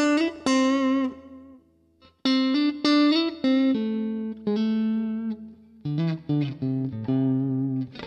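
Clean electric guitar played through a Zoom G1 Four multi-effects pedal on its MatchClean preset: picked single notes and short phrases, some with vibrato, left to ring out. There is a short pause about two seconds in.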